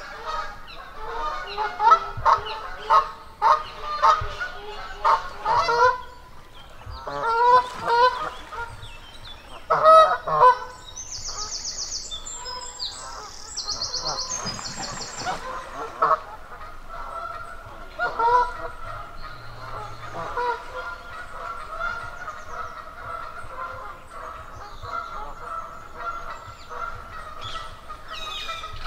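Geese honking: a rapid run of calls at first, then louder separate honks, settling into quieter, steadier calling.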